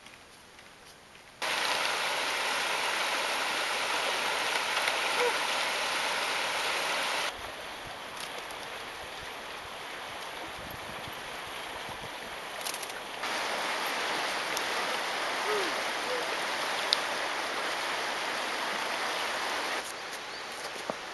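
Steady rush of flowing river water, presumably the Hoh River, heard over a run of short clips. The level jumps up or down abruptly at each cut, about four times, with a much quieter stretch in the first second or so.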